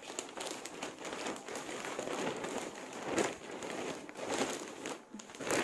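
Thin plastic bag crinkling and rustling as it is handled, a continuous crackle that swells twice.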